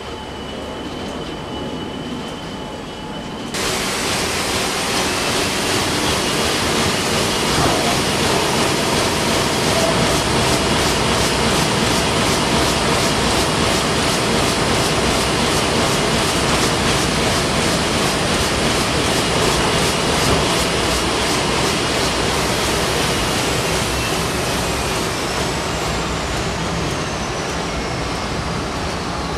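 Heidelberg sheetfed offset printing press running, a steady mechanical din that gets suddenly louder a few seconds in, with a fast, even ticking through the middle. Near the end a high whine falls steadily in pitch as the press slows.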